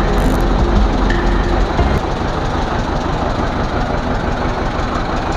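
Toy train's locomotive engine running: a steady mechanical noise with a heavy low rumble that eases about two seconds in.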